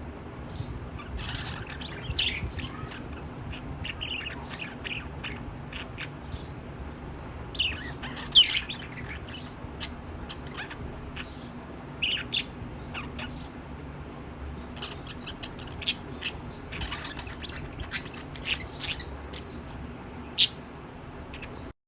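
Lovebirds chirping: short, sharp calls coming irregularly, with a few louder squeaks about eight seconds in and near the end, over a steady low background hum.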